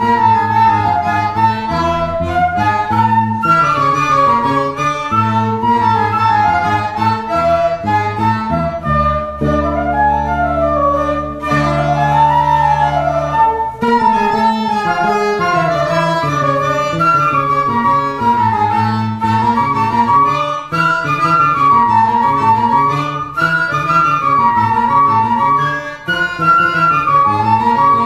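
Live folk-jazz trio of flute, piano accordion and electric bass playing: the flute carries an ornamented melody over accordion chords and a moving bass line. Near the middle the low part holds one chord for a few seconds under the melody.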